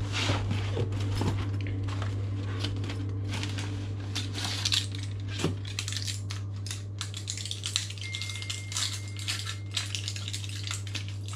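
Clinking and rattling of small hard objects being handled in a kitchen, many short sharp clicks, over a steady low hum. A faint thin high tone sounds for about a second and a half past the middle.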